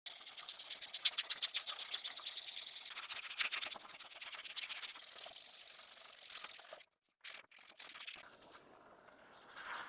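Quick, repeated abrasive rubbing strokes on the hatchet, the scratch of hand sanding or filing. The strokes stop abruptly about seven seconds in, and fainter, intermittent rubbing follows.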